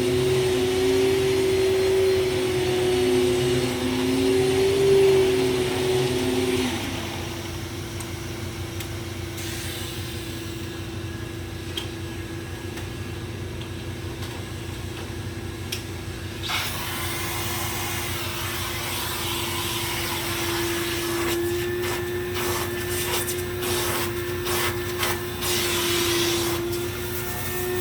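Hoover Supremacy power-nozzle canister vacuum running with a steady motor whine. About a quarter of the way in, one part of the sound stops and it gets quieter. Through the second half, clicks and knocks come as the machine is pushed about.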